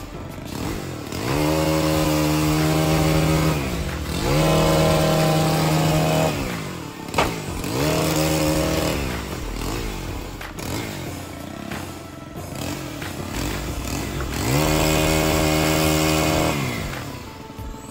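Chainsaw cutting tree limbs: the engine revs up to full throttle four times, holding a steady high pitch through each cut, then drops back to idle between cuts. A sharp snap about seven seconds in.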